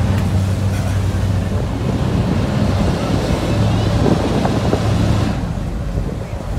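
Boat engine droning steadily under the rush of water and wind buffeting the microphone; the rushing hiss eases about five seconds in, leaving the engine hum.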